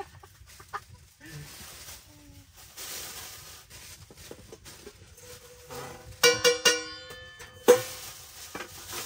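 An animal's short, sharp, high calls: a quick run of three about six seconds in, then one more, loudest of all, a second later.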